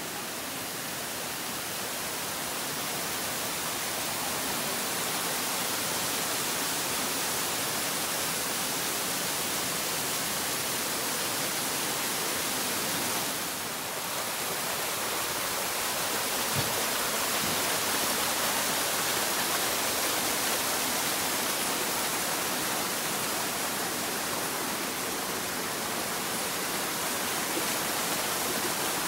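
Steady rush of water from a mountain stream cascading over small falls, an even hiss that dips briefly about halfway through.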